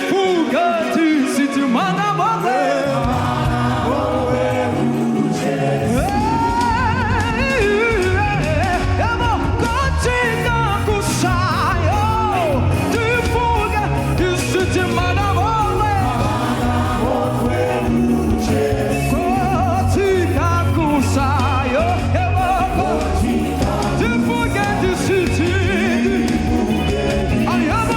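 Gospel worship song with a lead singer's wavering, ornamented vocal line over band music. A deep bass part comes in about three seconds in and fills out around six seconds, with steady percussion hits throughout.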